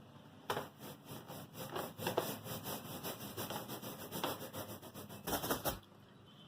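Repeated quick rubbing strokes, roughly three a second, stopping about a second before the end.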